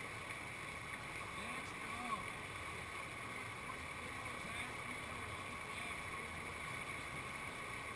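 Steady rushing of river whitewater pouring over a rock ledge into a standing wave.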